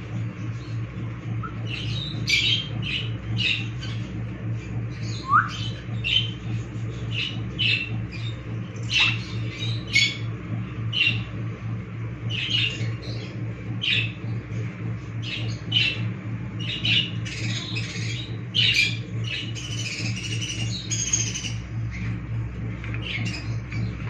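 Pet parrots giving short, sharp squawks and chirps, about one or two a second, with a brief rising whistle about five seconds in and a denser run of squawks near the end, over a steady low hum.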